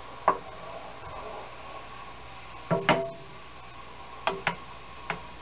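Wooden spoon knocking against the side of a metal skillet of pan juices while stirring: about five sharp knocks. The loudest is a pair about three seconds in, with a brief ring from the pan.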